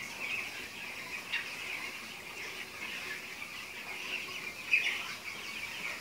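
A large flock of young broiler chicks peeping in a continuous high-pitched chatter, with a slightly louder flurry about five seconds in. The chicks have just been fed and are settling to rest.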